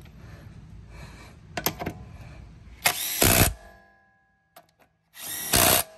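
A power tool run in two short bursts, spinning the wheel's lug nuts on before they are torqued.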